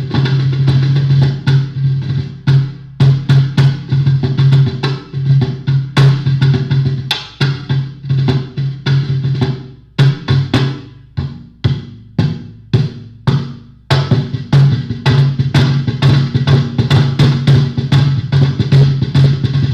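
Homemade ammo-can cajon, fitted with a piezo pickup and cut snare wires, hand-played through a Fender bass amp: a steady run of deep booming bass hits and sharper snare-rattling slaps. The beat thins to sparser single hits for a few seconds midway, then picks up again.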